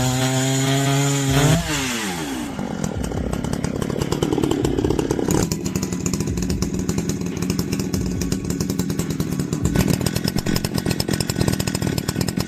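Husqvarna 394XP two-stroke chainsaw held at high revs, its pitch falling about two seconds in. It then runs under load through the wood with a rough, rapid pulsing.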